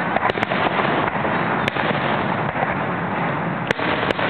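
Aerial fireworks bursting overhead: a continuous dense crackle and rumble with several sharp cracks on top.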